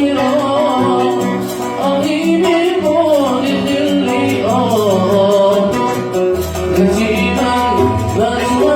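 Yemeni Sanaani song: a man singing a melismatic, gliding melody to plucked oud accompaniment.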